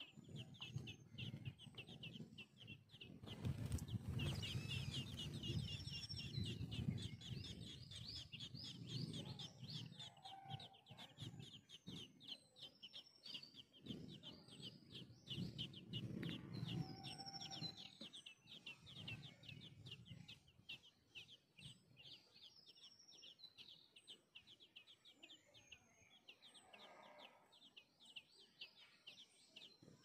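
Birds chirping rapidly and continuously in high notes, with a few clear whistled notes mixed in. Lower, rougher sounds come and go through the first two-thirds, then fade, leaving the chirping fainter.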